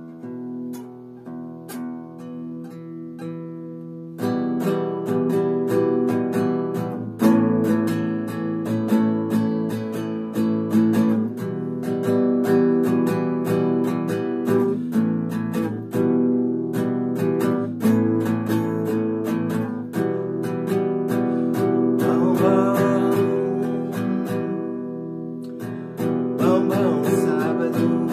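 Acoustic guitar played solo, starting with quieter plucked notes and then, about four seconds in, strummed chords that are louder and fuller.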